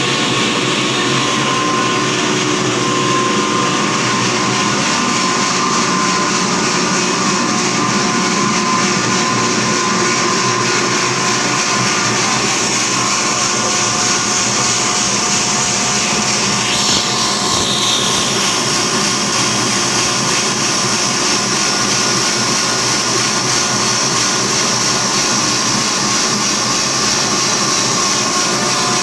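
Poultry feed grinder machine running steadily, a loud, even mechanical drone with a whine.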